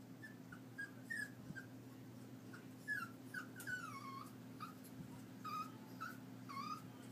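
Puppy whimpering softly: a run of short, high whines, several sliding down in pitch.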